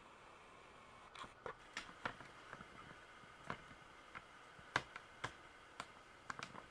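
Quiet room tone with scattered small clicks and taps at irregular intervals, the sharpest about four and three-quarter seconds in.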